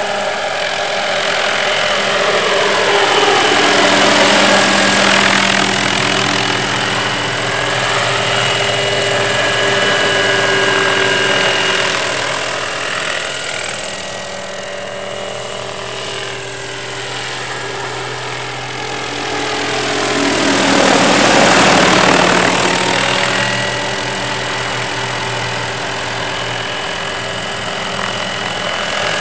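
Radio-controlled scale UH-1 Huey model helicopter flying past, its motor whine and rotor noise running steadily. The sound swells twice, about four seconds in and again about twenty-one seconds in, with the pitch sliding down as it goes by.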